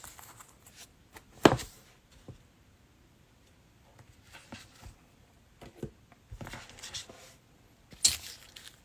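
Trading cards and their plastic holders being handled on a table: a sharp knock about a second and a half in, then a few light clicks and rustles.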